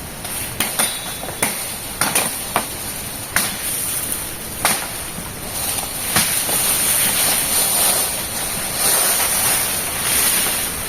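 Irregular sharp chops of a machete and brush hook cutting through peach palm stems and leaves, over a steady high hiss.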